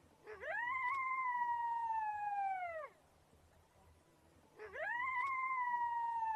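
Coyote howling: two long howls, each sweeping quickly up, held, then sliding down at the end, the second starting about halfway through.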